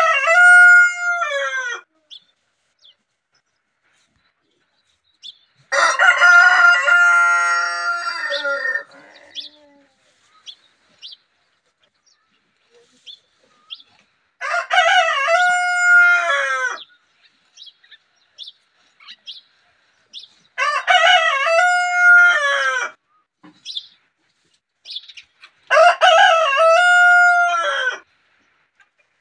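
Rooster crowing repeatedly: five cock-a-doodle-doo crows, each about two seconds long and five to six seconds apart. The second crow, about six seconds in, is longer and rougher than the others.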